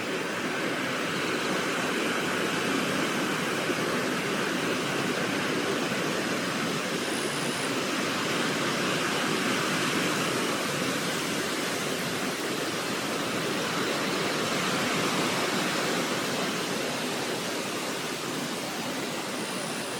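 Steady rushing of flowing water, an even, unbroken wash of noise.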